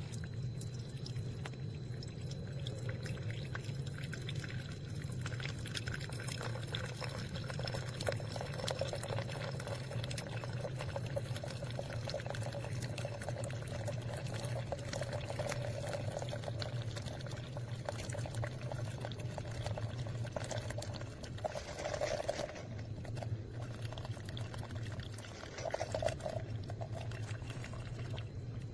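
Single-serve coffee maker brewing: a steady low hum from the machine with liquid pouring and trickling into the cup, and many small ticks and drips.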